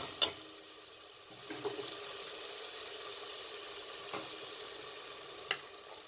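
Onion-tomato masala sizzling and bubbling in oil in a pressure cooker, with a few light clicks from a spoon against the pot.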